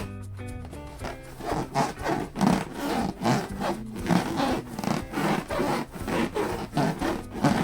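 Latex balloons rubbed and squeezed by hand: repeated squeaky rubbing strokes, about two or three a second, starting about a second in.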